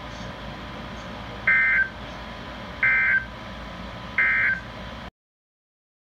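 Emergency Alert System end-of-message data bursts: three short, high-pitched digital bursts about a second and a half apart, signalling the end of a severe thunderstorm warning broadcast. The sound cuts off abruptly about five seconds in.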